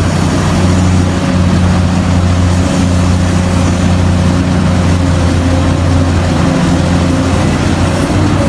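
Heavy diesel engine of mining machinery running steadily under load, a deep drone with a faint high whine above it.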